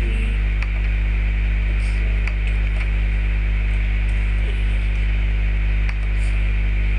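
Steady loud electrical mains hum, a buzz with many overtones, plus hiss on the recording line, with a few faint clicks.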